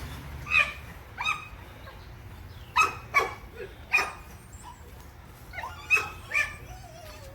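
Puppies yipping and barking: about seven short, high, sharp barks at irregular intervals over a low steady background hum.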